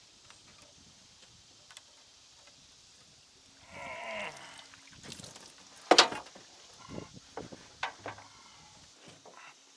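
Knocks and clicks of a caught catfish and gear being handled in a small fishing boat, the loudest a single sharp knock about six seconds in, followed by several lighter taps. Just before it comes a short pitched, grunt-like sound that bends in pitch.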